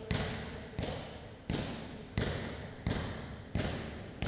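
Medicine ball wall-ball reps: sharp thuds about every 0.7 seconds as the ball strikes the target and is caught, each with a short echo.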